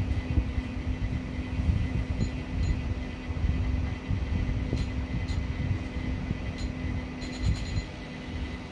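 Steady low rumbling noise with a constant hum, broken by a few short high beeps, typical of a programmable RC transmitter's key beeps while a servo endpoint is being set; the hum stops shortly before the end.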